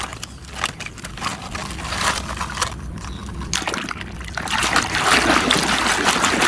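A mud-covered plastic toy being scrubbed by hand in a basin of water: irregular sloshing and splashing that gets busier and louder from about four and a half seconds in.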